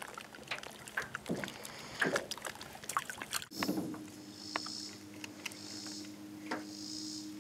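Small fishing boat on the water, with light knocks and clicks from the rod, reel and hull and water moving against the boat. About halfway through, a steady low hum comes in, and a high buzz swells and fades about every second and a half.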